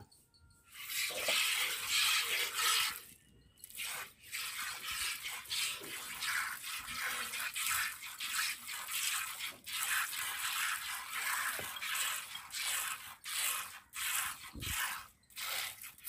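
Hand-milking a Beetal goat: jets of milk squirting into milk in a plastic bucket, in a steady rhythm of about two squirts a second, with short pauses near the start and about three seconds in.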